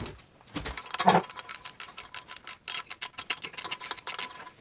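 Ratcheting wrench clicking as it is swung back and forth to loosen small 8 mm nuts, in two runs of rapid, even clicks, the second longer, with a duller knock just before the first run.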